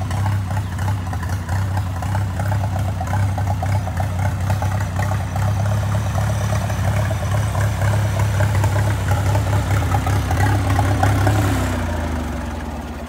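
1939 Farmall H tractor's four-cylinder engine idling steadily just after being started by a homemade remote-start system. Near the end it winds down and stops.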